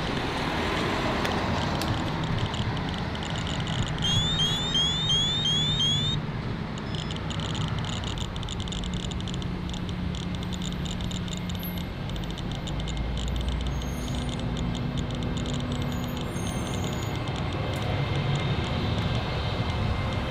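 Radiacode 103G radiation detector held against uranium-glazed tiles: a quick run of about five rising beeps about four seconds in, then rapid clicking, the count rate of the radioactive glaze. Steady road traffic runs underneath.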